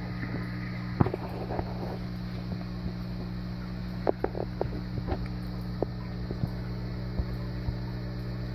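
A steady low mechanical hum, with scattered light clicks and knocks.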